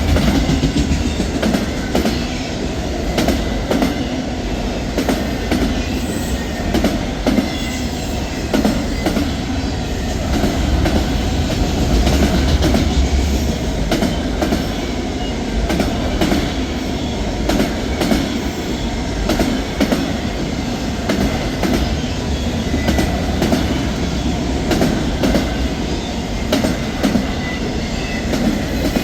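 Freight train cars rolling past close by, a steady rumble with wheels clicking over the rail joints.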